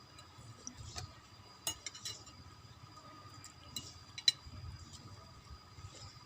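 Scattered light clinks of a spoon against a plate during eating, with one sharper clink a little after four seconds in.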